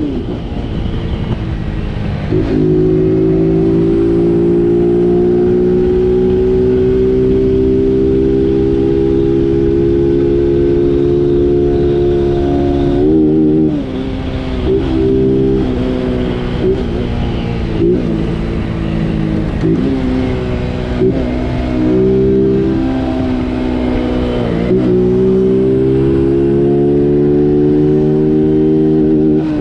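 Honda Biz's single-cylinder four-stroke engine running under way, a steady drone that climbs slowly in pitch. About halfway through the throttle comes off and on several times, then the engine pulls up again near the end.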